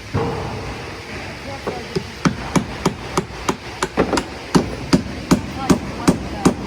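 Hand hammer driving large nails through a window installation into wall framing: a loud knock at the start, then from about two seconds in a steady run of strikes, about three a second.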